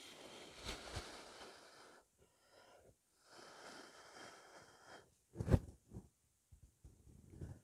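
A person blowing hard through the mouth onto wet acrylic paint to spread a bloom pour: two soft, breathy blows of a second or two each, then a short, louder thump about five and a half seconds in.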